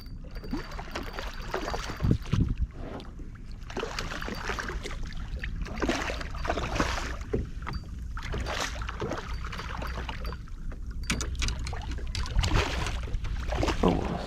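Water splashing and sloshing beside a kayak in irregular bursts as a hooked redfish is fought to the boat, over a steady low wind rumble on the microphone.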